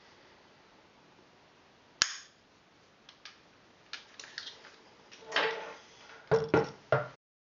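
Handling of a Silverback SRS airsoft sniper rifle on a wooden workbench: one sharp snap about two seconds in, then scattered light clicks, a short scrape, and three loud knocks near the end as the rifle is laid down on the wood.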